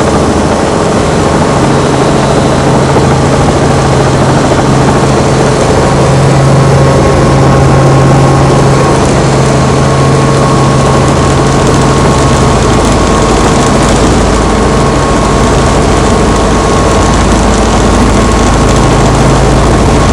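Robinson R44 helicopter's piston engine and rotors running steadily and loudly, with a deeper rumble building about halfway through.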